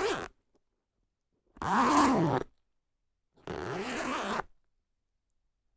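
A jacket zipper is pulled in separate strokes: the tail of one right at the start, then two full pulls of about a second each, roughly two seconds apart. Each has a zip pitch that rises and then falls as the pull speeds up and slows.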